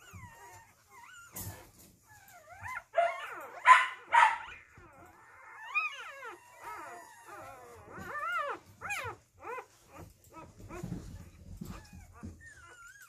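Two-day-old puppies squealing and whimpering as they nurse: a string of thin, high squeaks that rise and fall in pitch, with two louder cries about four seconds in.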